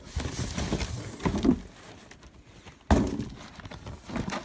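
Cardboard shoe box being handled and pried at: rustling and scraping, then one sharp thunk about three seconds in.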